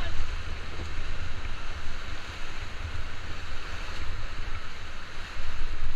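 Rushing river water around a raft, with wind buffeting the action-camera microphone as a steady low rumble.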